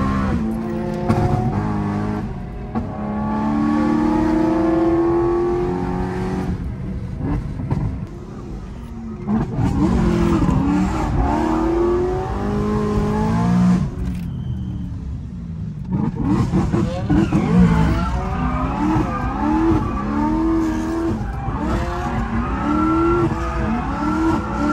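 Supercharged, straight-piped BMW M3 E90 V8 heard from inside the cabin, accelerating hard: the engine note climbs and drops back at each gear change. There is a short lift-off about two-thirds of the way in, then a quick run of short rev rises near the end.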